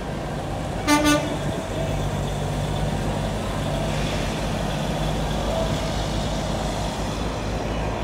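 Semi truck's horn giving two quick toots in answer to an arm-pump request, about a second in, over the steady low running of the truck's diesel engine as it pulls a tanker trailer past.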